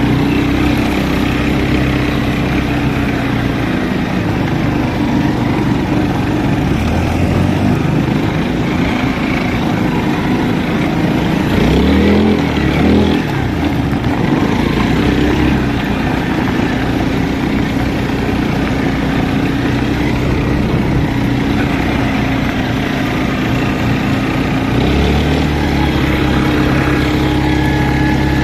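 Linhai 300cc ATV engine running under way, mostly at a steady speed, its pitch dropping and rising quickly about twelve seconds in and climbing again at the end as the throttle opens.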